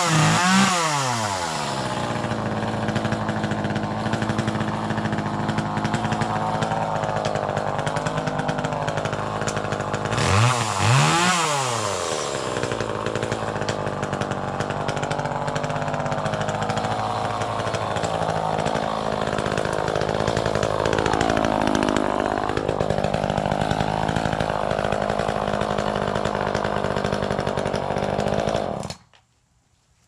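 Echo CS-303T two-stroke chainsaw running. It revs up and down at the start and again about ten seconds in, then runs steadily at high speed, wavering in pitch, and shuts off abruptly just before the end.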